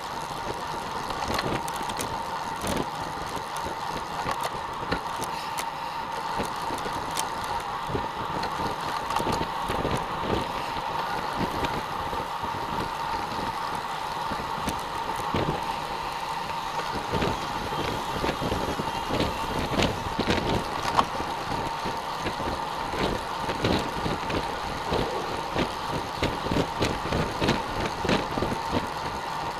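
Riding noise from road bicycles rolling along an asphalt road, heard from a camera on a moving bike: a steady rush of tyres and air with a constant hum, peppered with frequent small knocks from bumps in the road.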